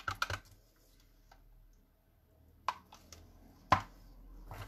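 A few light clicks and taps from paint cups and tools being handled on the work table during acrylic pouring; the sharpest knock comes a little under four seconds in.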